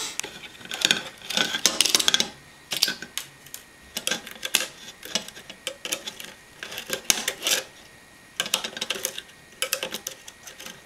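Small metal clicks, taps and scrapes from a floppy drive's sheet-metal chassis being pried at and handled with a screwdriver and fingers, coming in irregular clusters with a short lull about eight seconds in.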